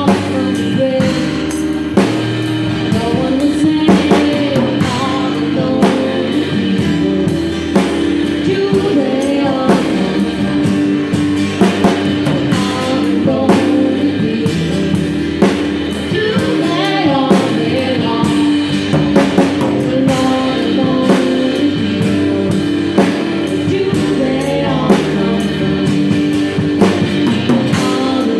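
A live band playing a song: a woman sings lead over acoustic and electric guitars, an upright bass and a drum kit keeping a steady beat.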